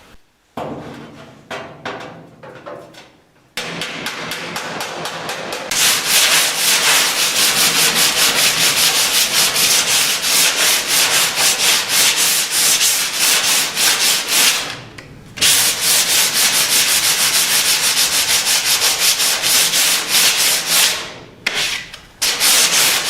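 Hand sanding or filing across a welded steel body panel: loud, rhythmic back-and-forth scratching strokes, about four a second, stopping briefly twice. It works over the repair to show up the high and low spots left by welding.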